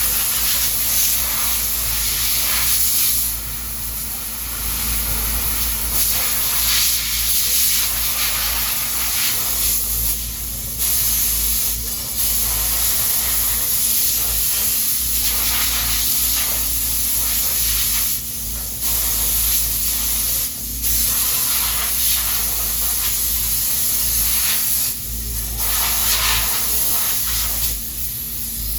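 Loud hissing spray that cuts out briefly every few seconds, over a steady low hum.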